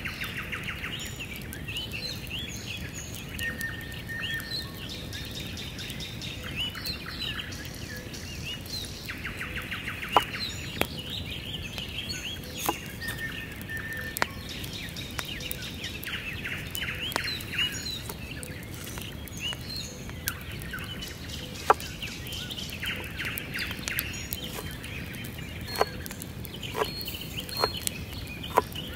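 Small birds singing and chirping throughout, with sharp knocks of a chef's knife striking a wooden cutting board while an onion is trimmed and cut; the knocks come singly at first and several in a row near the end.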